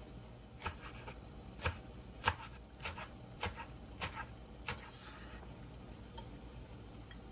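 Knife chopping on a cutting board: about seven sharp, evenly spaced chops a little over half a second apart, stopping about five seconds in.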